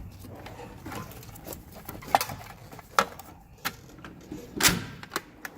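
Several scattered sharp clicks and clinks of tools and items being handled and moved around in a tool box drawer. The loudest, a longer clatter, comes about two thirds of the way through.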